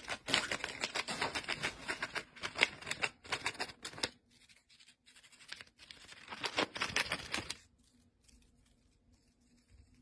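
Rosy-faced lovebird shredding paper with its beak: rapid crisp snipping and tearing clicks for about four seconds, a pause, then another burst of about two seconds.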